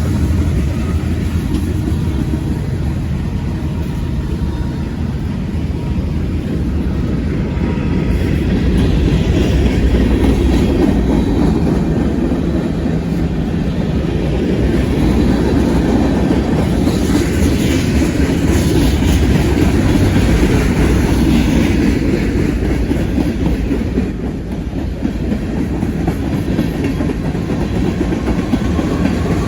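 Montana Rail Link local freight train rolling past: a steady, loud rumble of wheels on the rails.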